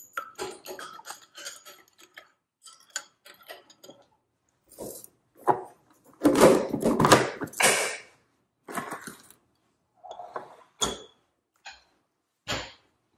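A metal spoon stirs and clinks against a glass measuring cup. About six seconds in comes a couple of seconds of loud, rapid ratcheting from a small pepper grinder being twisted, then a few scattered knocks of things set down on a granite countertop.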